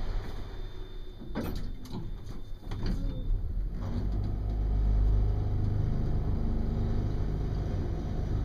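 Passenger lift doors shutting with a few knocks and clatters, then the lift car travelling up with a steady low hum from about four seconds in.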